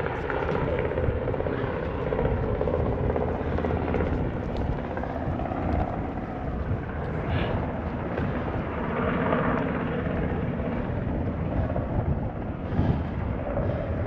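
Helicopter flying low overhead, its rotor beating steadily.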